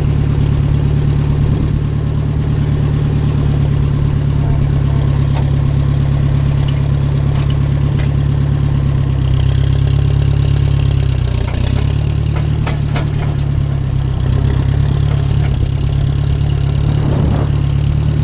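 Small farm tractor's engine running steadily while the tractor is driven, heard close up from on board. The engine note dips briefly about midway and recovers, with some clicks and rattles around then.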